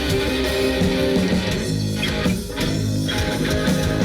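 Rock band playing an instrumental passage between vocal lines, with electric guitar and bass guitar. The upper range briefly drops out about two and a half seconds in.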